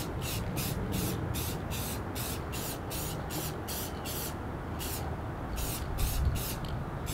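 Aerosol spray paint can hissing in quick short bursts, about three a second, with a pause of about a second midway.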